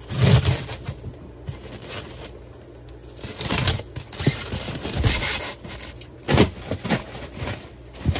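A styrofoam shipping box and its lid being handled, giving a series of irregular scraping and rubbing noises.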